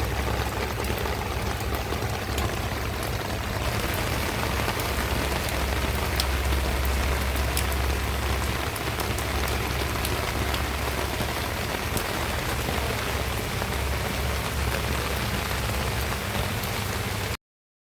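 Steady rain falling, a continuous patter with scattered sharper drop ticks over a low steady rumble, cutting off abruptly near the end.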